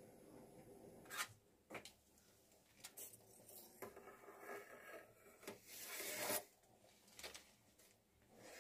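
Faint, intermittent scrapes and rubs of a steel spoon against a steel saucepan as froth is skimmed off boiling moong dal, the longest scrape about six seconds in.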